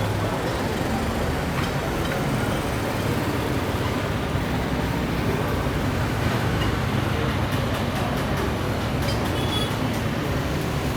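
Steady low engine rumble with an even hiss over it, holding level with no rise or fall.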